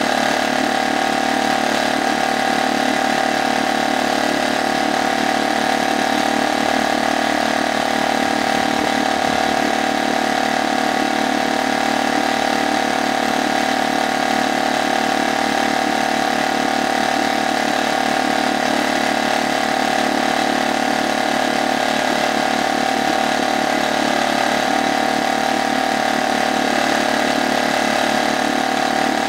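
Brand-new HDX F 2.6 single-cylinder four-stroke outboard motor running steadily at idle in a test barrel of water, on only its second start.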